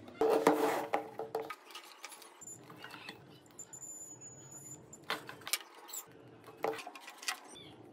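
Small clicks, taps and scrapes of hands handling a phone's circuit board and multimeter test probes, with a louder clatter in the first second and a half and scattered light clicks after.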